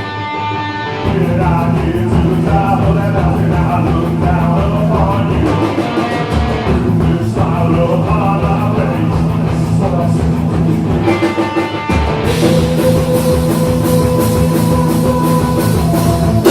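Loud rock band playing punk-style rock, with drums and guitar; the full band comes in about a second in.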